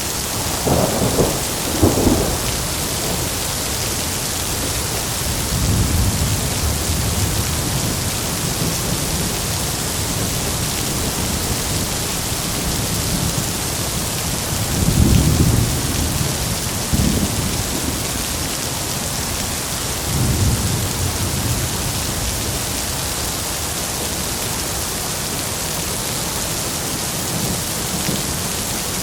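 Heavy rain falling steadily, with low rumbles of thunder swelling up several times, the strongest right at the start and again about halfway through.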